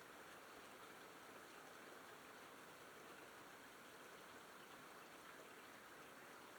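Faint steady rain falling, an even hiss that does not change.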